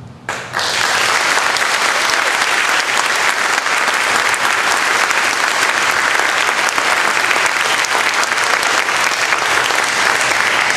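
Theatre audience applauding, breaking out suddenly about half a second in and then holding steady and full.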